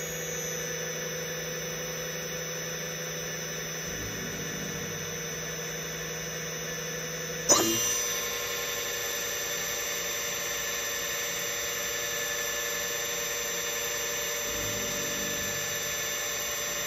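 FANUC motor spinning on a test bench under a repaired amplifier, a steady electric whine with several high tones. About seven and a half seconds in, the tones shift with a brief loud surge, a speed change, and it settles into a slightly louder whine.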